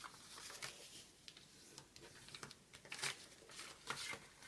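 A sheet of paper being folded and turned over by hand: faint rustling and crinkling of the paper, with a few sharper crackles, the clearest about three seconds in.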